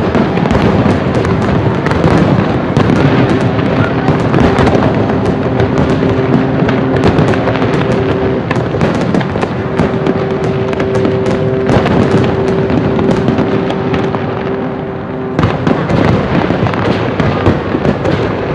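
Aerial fireworks display: a dense, continuous crackling and popping of bursting shells, with a steady held tone beneath for most of it.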